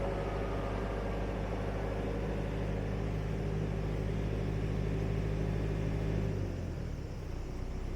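Vehicle engine running steadily while driving along, its pitch dropping and the sound easing off about six seconds in as it slows down.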